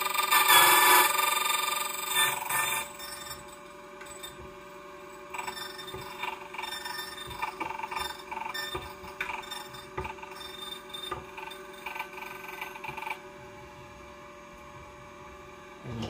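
Xhorse Condor XC-009 battery-powered key duplicating machine cutting a Sargent key: the cutter grinds loudly into the blank for the first three seconds or so, then cuts lighter and on and off over the steady whine of the motor. Over the last few seconds the motor runs on alone.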